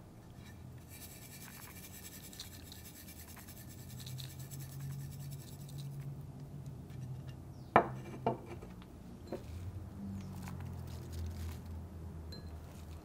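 Ingredients being added and handled in a stone molcajete: a faint scratchy rustle, then two sharp knocks about half a second apart a little past the middle, the loudest sounds.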